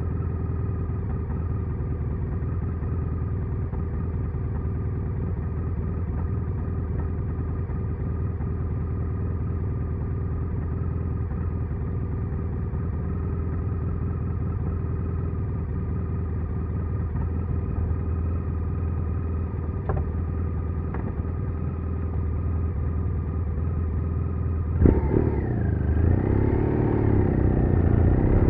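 BMW R1200R boxer-twin motorcycle engine running steadily at an even speed. About 25 seconds in it gets suddenly louder and its pitch rises and falls repeatedly.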